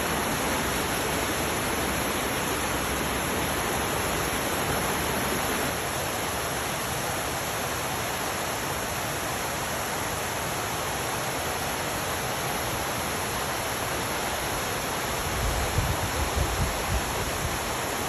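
Waterfall rushing in a steady, dense roar of falling water, with a few low thuds about three quarters of the way through.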